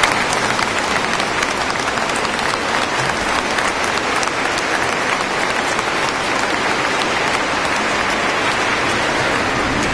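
A large congregation applauding steadily, many hands clapping at once.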